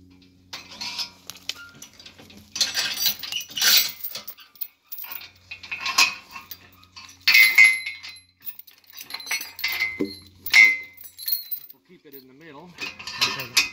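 Steel log chain rattling and clinking in irregular bursts as it is wrapped around a log and hooked onto a steel logging arch, with a few sharp metal chinks that ring briefly.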